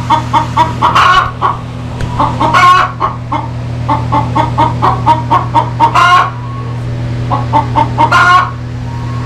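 A hen cackling: runs of quick clucks, each building into a longer, louder squawk, four times over, above a steady low hum.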